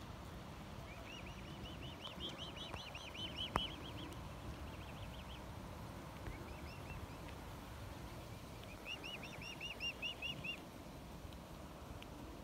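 Mute swan cygnets peeping: fast runs of high, evenly repeated calls in two bouts, one in the first few seconds and another near the end, with a short run between. A single sharp click cuts through the first bout.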